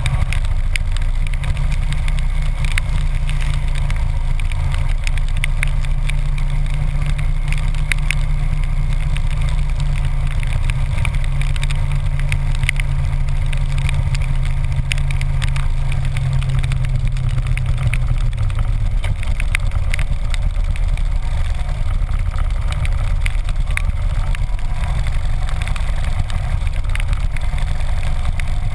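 Harley-Davidson V-twin engine running at road speed in the rain, a steady low drone that weakens about two-thirds of the way through, with wind and scattered clicks of raindrops.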